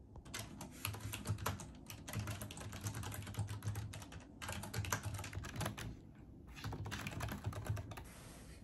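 Typing on a computer keyboard: quick, irregular key clicks in four bursts separated by short pauses.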